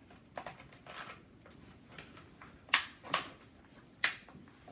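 Toy packaging being handled: faint rustling and three sharp plastic clicks or knocks, the loudest a little under three seconds in.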